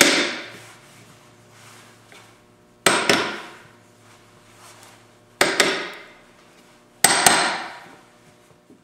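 A small hammer taps the connecting rods on a Porsche 356 crankshaft held in a vise. There are four sharp metal blows about two to three seconds apart, some of them doubled, and the steel rings out for about a second after each.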